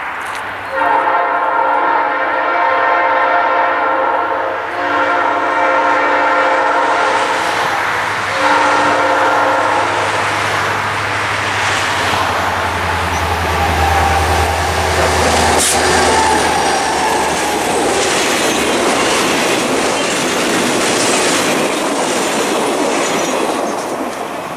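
Norfolk Southern SD60 diesel locomotive sounding its horn in three blasts, the first the longest, as it approaches. It then passes with its EMD two-stroke diesel engine rumbling, followed by the steady rolling noise of the freight cars' wheels on the rails.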